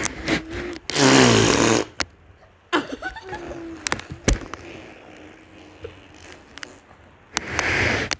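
A girl making fart noises: a loud, spluttering one about a second in lasting about a second, with a falling pitch, then quieter pitched sounds, and another burst near the end.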